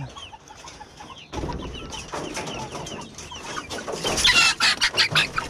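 Chickens clucking, softly at first, then louder and busier from about four seconds in as a hand reaches into the coop to catch one.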